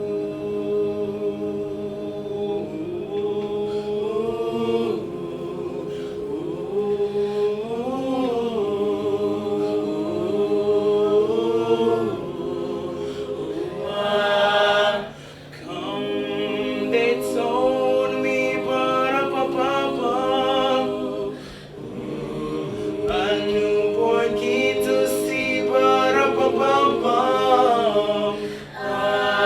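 Choir singing held wordless vowels in close harmony, the notes swelling and gliding, with two brief breaths between phrases.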